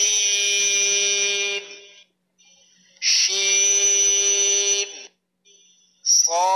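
A voice reciting Arabic letter combinations in a drawn-out, level-pitched chant: two held syllables of about a second and a half each, with a third starting near the end.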